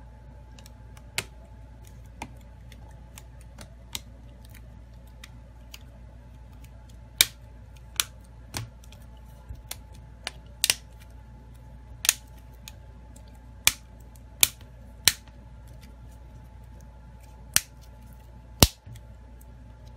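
Plastic clips of a Samsung Galaxy A21s snapping into place as the phone is squeezed together around its edges. About a dozen sharp clicks come at irregular intervals, the loudest near the end, over a steady low hum.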